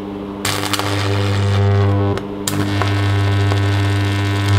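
Electric arc between the two rods of a carbon arc torch, powered by an AC arc welder through a rectifier. It is struck about half a second in and buzzes loudly over a low mains hum, goes out for a moment around the middle and is struck again. The welder's transformer hums steadily throughout.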